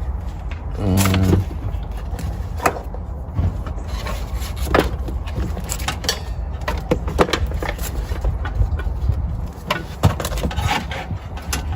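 Rubbing and scraping handling noises with scattered sharp clicks and knocks over a steady low rumble, and a short pitched sound about a second in.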